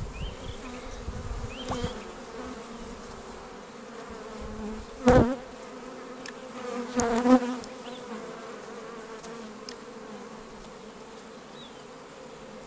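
Honeybee colony humming steadily over an opened hive. About five seconds in, and again around seven seconds, two brief, much louder buzzes stand out.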